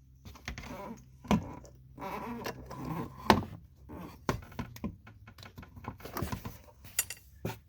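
Plastic clicks and knocks of a seatbelt bypass plug being handled and snapped into the seatbelt wire connector of a Can-Am Maverick Max, with handling rustle between; the loudest click comes about three seconds in.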